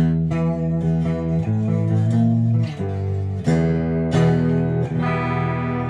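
Harley Benton Fusion II electric guitar played through a Mesa/Boogie JP2C amp and a 4x12 cabinet: a run of ringing chords, changing about five times, played to check the tuning, which holds.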